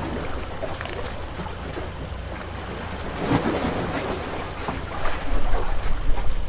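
Wind buffeting the microphone over the wash of open water, with a stronger gust about five seconds in.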